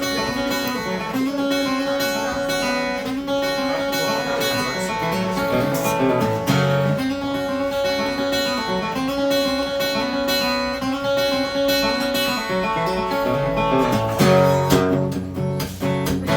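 Acoustic guitar strumming chords as the instrumental intro of a song, growing fuller and louder about fourteen seconds in.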